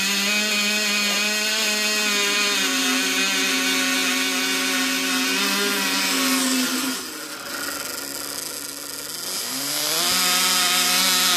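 Cox .020 two-stroke glow engine running at full speed with a high-pitched buzz just after starting. About seven seconds in it drops to a lower, quieter speed, then revs back up around ten seconds in.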